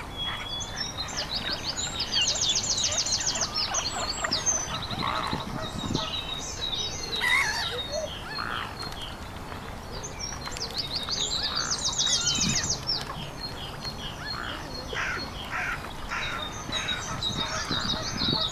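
Several wild birds singing and chirping together, with a rapid, high, buzzy trill repeated twice among many short high chirps and some lower calls.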